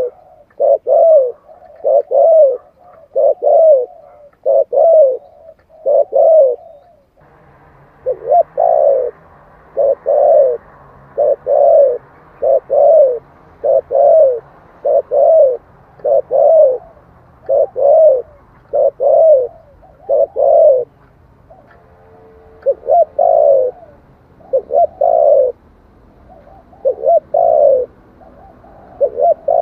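Spotted dove cooing in a fast, repeated series of short coo phrases, about one or two a second. About seven seconds in, the recording changes and a steady hiss and low hum sit under the calls. There is a brief pause in the calling a little after twenty seconds.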